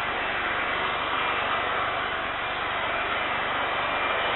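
Boeing 747-400F's four jet engines running at low thrust on the ground, a steady rushing noise with no change in pitch or level.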